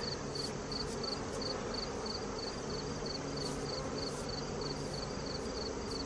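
Honey bees buzzing in a steady low hum around an open hive, with an insect chirping in a regular rhythm of about three chirps a second over it.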